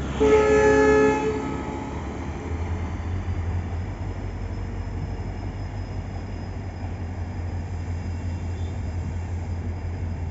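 Locomotive horn of an Indian Railways express train sounding one loud blast of about a second, then the low steady rumble of the train running.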